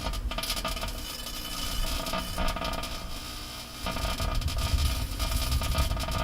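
Microwave oven running, a steady noisy hum with scattered crackling from the item cooking inside; the low rumble grows louder about four seconds in.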